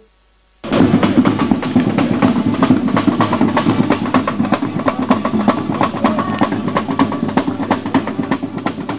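Live street band music led by drums, beaten in a fast, dense rhythm. It starts suddenly about half a second in, after a brief silent gap.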